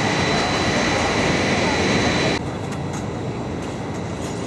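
Steady machinery noise from rooftop plant equipment, a dense rumble with a constant high whine. It cuts off abruptly about two and a half seconds in, leaving a quieter steady background noise.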